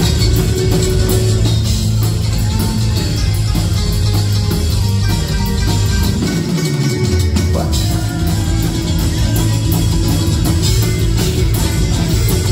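Live thrash grass band, a mix of thrash metal and bluegrass, playing loud: electric guitar, bass guitar and banjo. About halfway through, the low end drops away briefly with a falling slide, then the full band comes back in.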